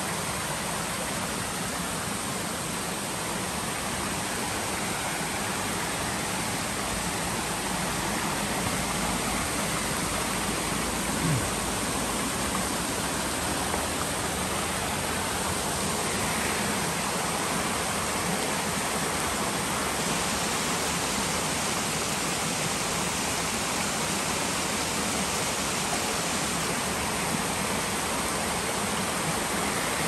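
Steady rushing of a small mountain creek spilling over rocks in little cascades. A brief low thump about a third of the way through.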